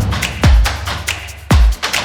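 Background electronic music with a steady thumping kick-drum beat and ticking hi-hats.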